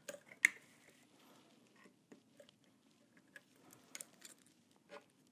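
Faint handling noises from the Prusa i3 MK3's 3D-printed LCD housing and its mounting screws being fitted: small scattered clicks and taps, with one sharp click about half a second in and a few fainter ones near four and five seconds in.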